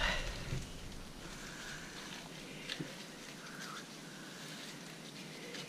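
Quiet outdoor ambience with a few faint, short animal calls and a couple of light clicks.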